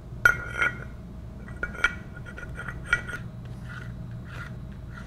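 Metal parts of a control valve's diaphragm assembly clinking together as they are handled and fitted by hand. Four sharp, ringing clinks come in the first three seconds, then softer rubbing and handling sounds.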